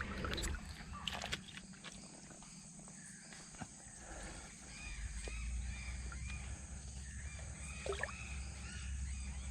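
Wild animal calls outdoors: a long series of short, arched, repeating calls, over a steady low rumble, with a few sharp clicks near the start.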